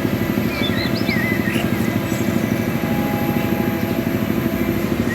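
A small engine running steadily with a fast flutter, with a few bird chirps above it.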